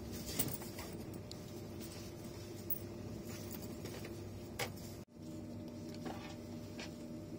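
Cabin noise inside a moving TGV Réseau high-speed train: a steady low rumble with a few sharp clicks and knocks. About five seconds in, the sound cuts off abruptly and a steady hum follows, with a few light clicks from a first-class seat's recline lever.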